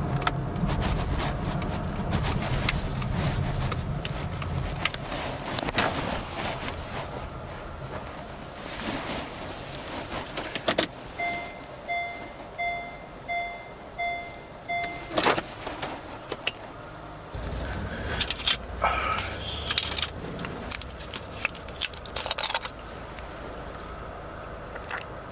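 Inside a 2016 Honda Vezel RS as it parks. Engine and road rumble fade as the car slows. About halfway through, the cabin's reverse-gear warning beeps about twice a second for a few seconds and is cut off by a clunk as the car is shifted out of reverse. Scattered clicks and a jangle of keys follow.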